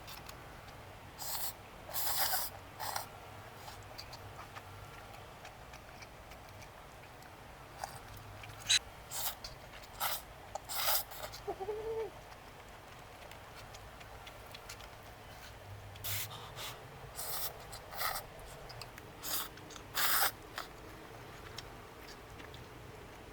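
A person eating: short, irregular bursts of eating noise, bunched in clusters.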